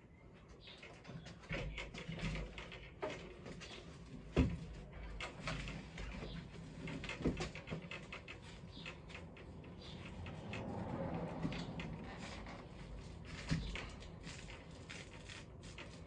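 Handling sounds of an e-bike being hung up on nylon velcro straps: scattered clicks, rustles and knocks, with one sharper knock about four seconds in.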